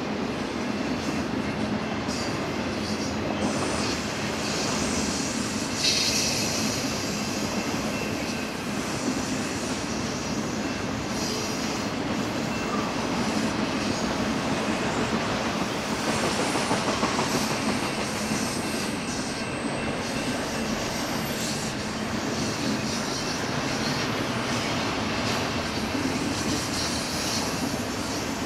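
Freight train cars rolling steadily past on the rails, with faint wheel squeal now and then.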